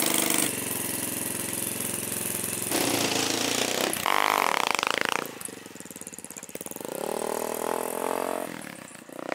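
Small Yamaha 185 motorcycle engine in a homemade streamlined three-wheeler running steadily, then revving up and down as the vehicle pulls away and drives off. It revs again about seven seconds in and fades near the end.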